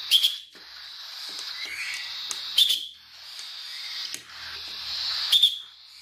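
A hand whistle blown in three short, loud, double-pulsed blasts about two and a half seconds apart, used as a feeding-response cue for hand-reared chicks. Between the blasts, a continuous raspy hissing swells and fades: the begging calls of young cockatiel chicks.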